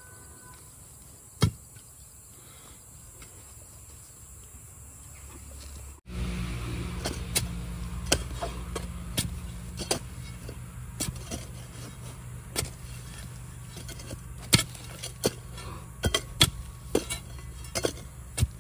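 A digging tool strikes hard ground in sharp, irregular knocks, about one or two a second. Under them runs a steady low motor hum that starts abruptly about six seconds in. Before that there is only quiet background with a single knock.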